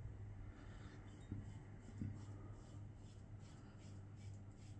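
Two soft taps about a second apart, then faint, short scraping strokes of a safety razor with a Derby Premium blade being drawn through lathered stubble.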